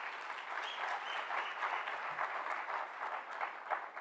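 An audience applauding, the clapping thinning to a few scattered claps near the end.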